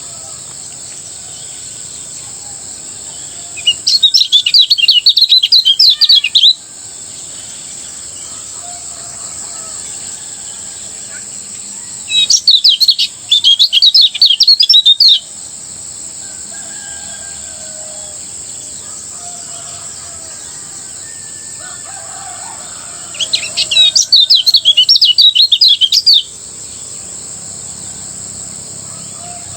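Kecial kuning (a white-eye songbird) singing in three bursts of fast, high, twittering song, each about three seconds long, over a steady high-pitched hiss.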